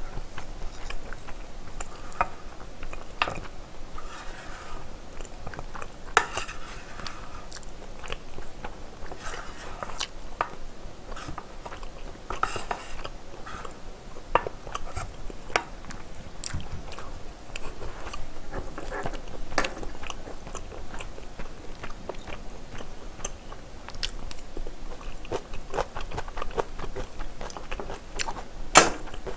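Close-miked chewing of oily spaghetti with whole peperoncino chilies, with short crunchy crackles and small clicks of wooden chopsticks and a wooden spoon against the plate. A sharper knock comes near the end.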